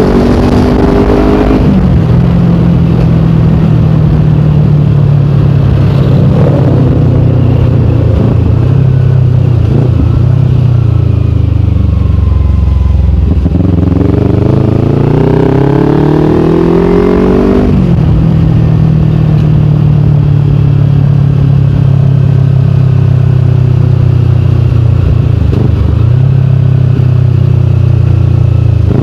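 Kawasaki Ninja 250 Fi parallel-twin engine running through a KP16 aftermarket exhaust while riding. The engine note drops just after the start and holds steady at cruise. About halfway it revs up for a few seconds as the bike accelerates, then drops sharply on an upshift and settles back to a steady cruise.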